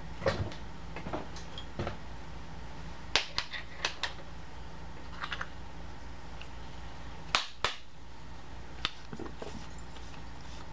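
Scattered sharp clicks and light metallic taps, irregularly spaced and bunched in two clusters, as aluminium chips are brushed off a milling-machine vise and table, over a steady low hum.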